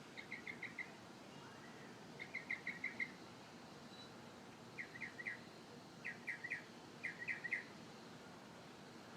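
A songbird singing in short bursts: about five phrases, each of four or five quick chirping notes, with pauses between them.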